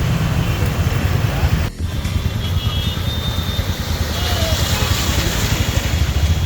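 Road traffic on a congested highway: vehicle engines running steadily, with a brief drop in level about two seconds in.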